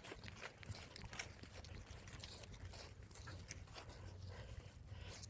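Faint outdoor ambience: a steady low rumble with scattered soft clicks and ticks.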